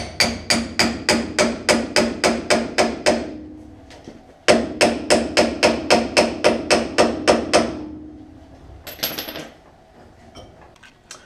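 A hammer beats on the steel of a car's front suspension in two fast runs of about four ringing blows a second, with a pause of about a second between them. A short metallic clink follows near the end.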